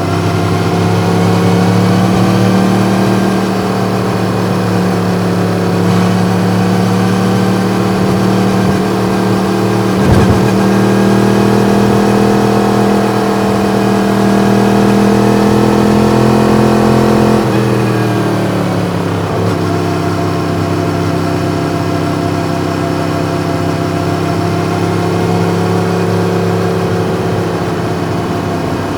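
Yamaha MT-10's crossplane inline-four engine with an Akrapovič exhaust running steadily at road speed, its note rising and falling gently, with a brief thump about a third of the way in. About two-thirds through the engine note drops suddenly, falls further, and then holds steady at lower revs.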